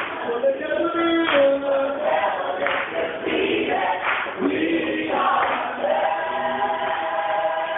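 A mass choir singing, several voices together holding and changing sustained notes.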